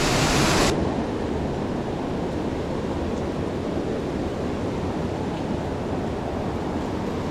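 Steady rushing of flowing creek water, bright and hissy for the first second or less, then a softer, lower rush.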